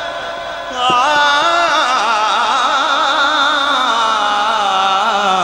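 A man singing a devotional kalam (naat) into a microphone. About a second in he takes up a long, drawn-out note that wavers up and down in pitch.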